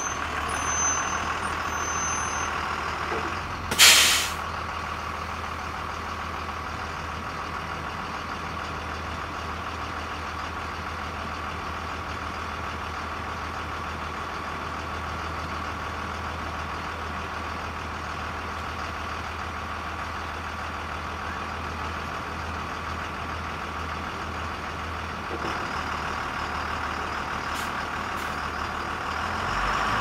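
School bus engine idling with a steady low hum. About four seconds in, the air brakes give one short, loud hiss. The engine grows a little louder near the end.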